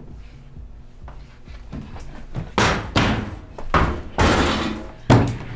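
Washroom doors banging shut, a run of sharp slams and thuds starting about halfway through, with the loudest bang near the end.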